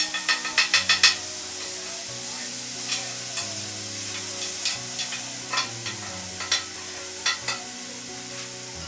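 Chopped vegetables sautéing in a frying pan over a gas burner: a steady sizzle, with a utensil scraping and knocking against the pan as they are stirred. A quick run of knocks comes in the first second, then single knocks now and then.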